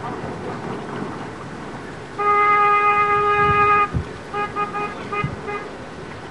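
A vehicle horn sounds one long steady blast of nearly two seconds, then a quick run of about five short toots.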